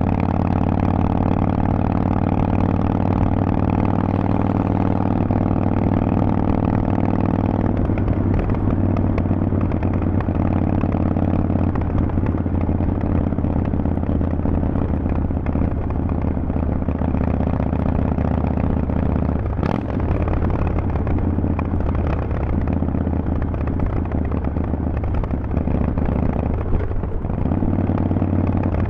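Harley-Davidson Forty-Eight's air-cooled 1200 cc V-twin running at a steady speed through Vance & Hines exhaust pipes, its note changing about eight seconds in. A single sharp click about two-thirds of the way through.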